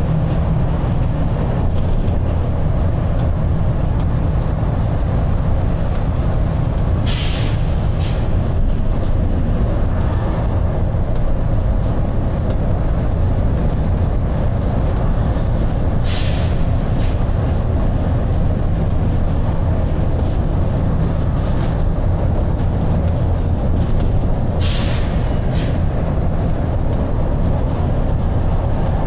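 Volvo B9TL double-decker bus's 9-litre six-cylinder diesel running steadily at road speed, a deep drone heard on board. Three short air hisses from the bus's air system come at roughly eight- to nine-second intervals.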